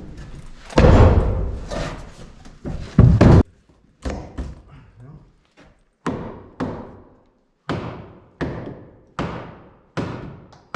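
Heavy hammer striking wooden framing to knock a window sill plate loose. It starts with a few deep thuds, then after a sudden break a steady run of sharp, ringing blows comes a little faster than one a second.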